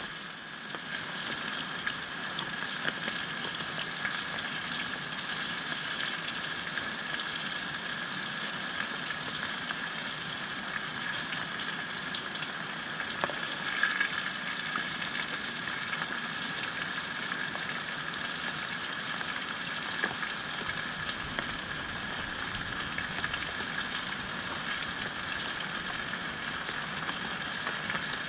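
Fish frying in hot oil: a steady sizzle with fine crackling, and one light knock about thirteen seconds in.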